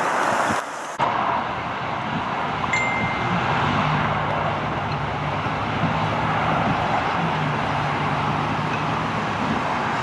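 Steady hiss of freezing rain falling on ice-glazed surfaces. From about three seconds in there is a low hum of a vehicle engine, and there is one brief high ding near three seconds.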